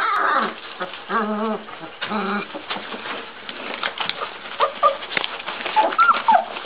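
Czechoslovakian wolfdog puppies, about two and a half weeks old, whimpering and squeaking in short high whines, with two lower, longer whines about a second and two seconds in. Newspaper rustles and crackles under them as they scramble about.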